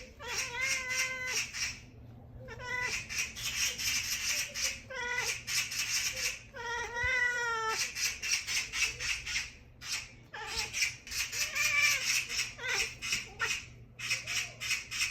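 Domestic cat chattering: bouts of rapid clicking mixed with short chirping, bending meow-like calls, with brief pauses between bouts.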